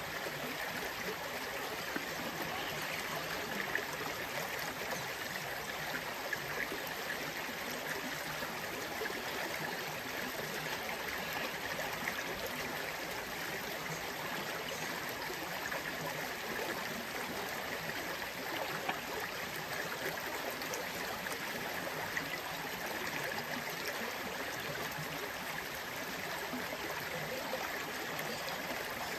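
Shallow creek water running steadily over rocks, with a few brief soft knocks scattered through it.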